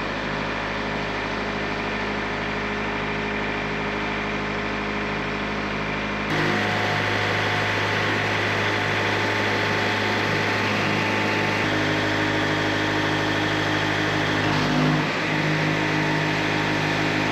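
Portable band sawmill's engine running steadily after being started. It gets a little louder about six seconds in.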